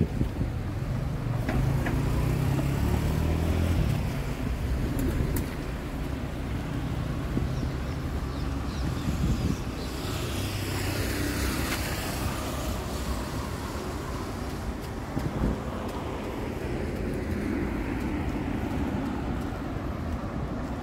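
Road traffic: cars driving past, with an engine rumbling in the first few seconds and another vehicle swishing past about ten seconds in, over a steady outdoor hiss.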